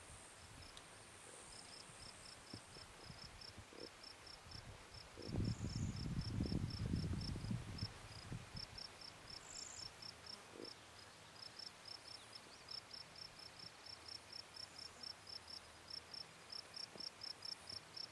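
Insect chirping steadily at a high pitch, about four short chirps a second. A low rumble on the microphone, the loudest sound, runs for about three seconds near the middle.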